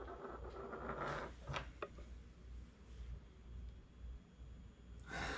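Quiet room with faint handling noise: soft rustling and a few light clicks, then a sharper click and a brief rush of noise near the end.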